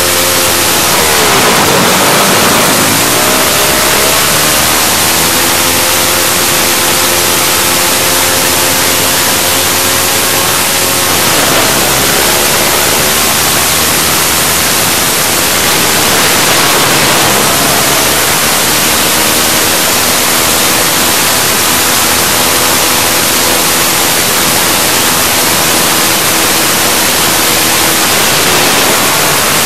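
Dirt bike engine running at speed, its revs dipping and climbing again a few times, under a heavy wind rush on a handlebar-mounted phone's microphone.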